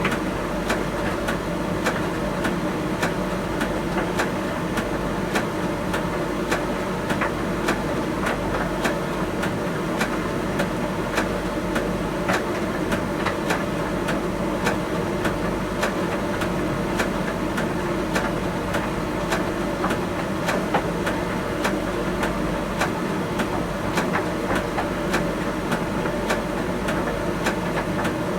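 Miele T1 heat-pump tumble dryer running: a steady mechanical hum with frequent light clicks and knocks from the load tumbling in the drum.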